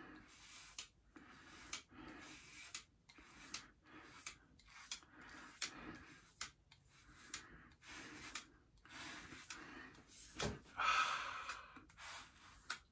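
Faint razor strokes scraping over stubble, short and repeated about once every half second. A soft knock comes about ten and a half seconds in, and a louder burst of noise follows just after.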